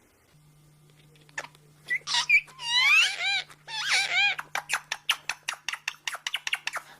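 A parrot giving squeaky whistled calls that slide up and down in pitch, then a fast run of short clicks, about ten a second, over a faint steady hum.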